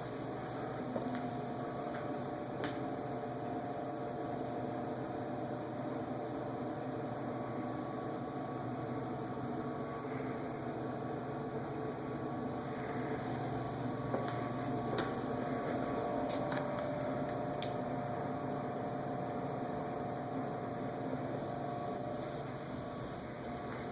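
Hunter Reversair Original ceiling fans running, a steady electric motor hum.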